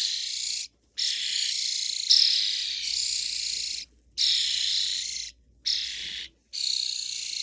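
Young European starlings begging for food with harsh, raspy calls, several birds at once, in runs of a second or more broken by short pauses.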